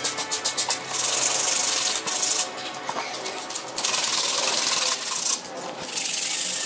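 Sandpaper rubbed by hand over Styrofoam foam, a dry scratchy hiss. Rapid short strokes in the first second, then longer continuous passes.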